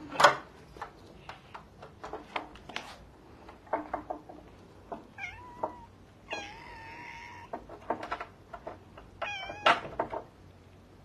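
A cat meowing: a short rising meow about five seconds in, a longer drawn-out meow just after it, and a short wavering one near the end. Sharp knocks and taps come throughout, the loudest right at the start.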